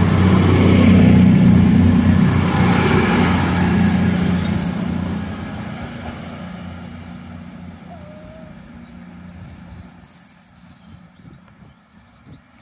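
A CrossCountry Class 221 Super Voyager diesel train's underfloor engines run with a steady drone and hiss as the train draws away. The sound holds for about five seconds, then fades steadily and is faint by about ten seconds in.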